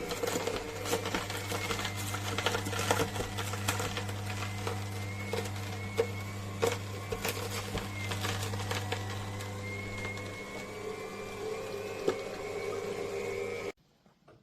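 Cold press slow juicer running: a steady low motor hum with many irregular clicks and crackles as produce is crushed by the auger. The low hum falls away about ten seconds in, and the sound cuts off suddenly near the end.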